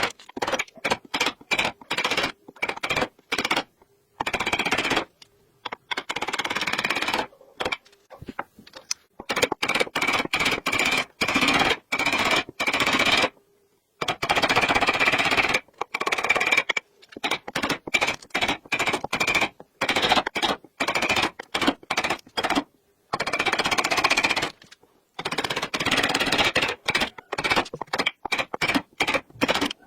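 Small power tool buzzing on wood in many short bursts that start and stop abruptly, with a steady high whine through each burst.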